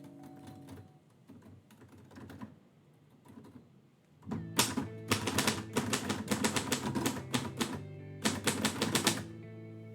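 1949 Royal Quiet Deluxe manual typewriter being typed on: a quick run of keystrokes starts about four seconds in, with a short pause near eight seconds. Background music plays throughout.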